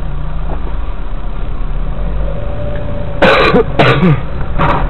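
Steady car engine and road rumble heard inside the cabin. About three seconds in, a person's loud voice breaks in with short outbursts.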